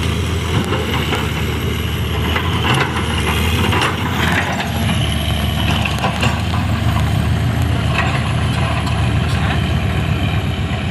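Heavy diesel engines of an excavator and a dump truck running steadily, with a few short knocks and clatters over the rumble.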